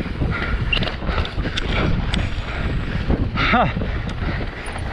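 Wind buffeting the microphone while mountain bike tyres and the bike rattle over a rough dirt trail at speed, with many small knocks. A short grunt from the rider comes about three and a half seconds in.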